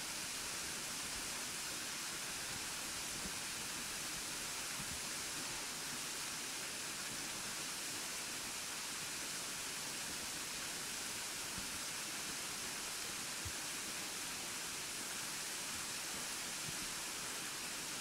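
Burgbach waterfall, a tall narrow fall of water pouring down a rock face, making a steady, even rushing hiss that does not change.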